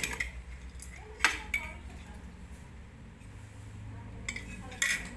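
Metal clinking and tapping from work on a refrigerator compressor's parts: a few sharp clicks at the start, a pair just over a second in, and another pair near the end, over a low steady hum.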